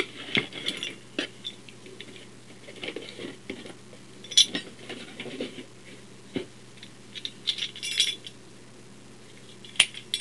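Schlage bathroom privacy knob lock being handled: scattered metallic clicks, clinks and rattles of its knob, latch and button, with one sharp click near the end. A faint steady low hum runs underneath.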